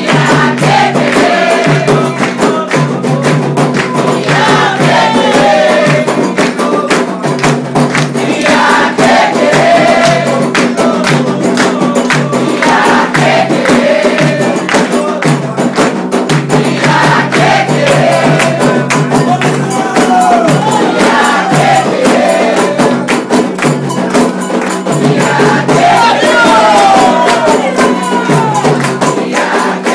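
Candomblé ceremonial song: voices singing over dense, fast, steady percussion.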